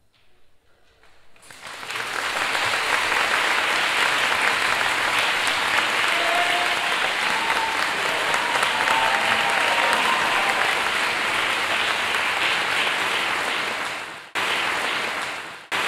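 Concert audience applauding after a Chinese orchestra performance. A few scattered claps build within about a second and a half into full, steady applause. The applause breaks off abruptly near the end.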